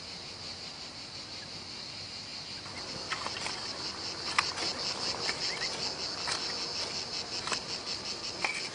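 Steady high chirring of field insects, and from about three seconds in, the knocks and scrapes of a hoe and digging fork working stony soil, growing louder toward the end.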